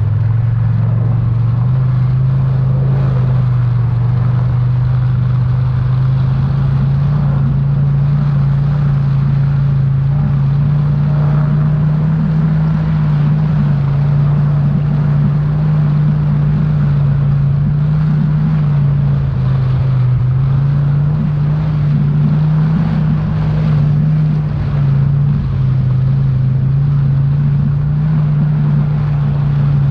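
An engine running steadily, its low drone drifting slightly up and down in pitch.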